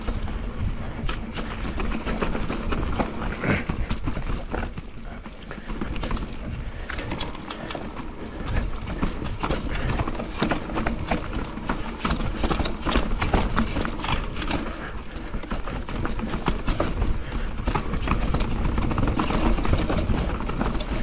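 Enduro mountain bike ridden fast down a steep, rough trail of roots and rocks: the bike clatters and rattles continuously over the bumps, with a steady low rumble underneath.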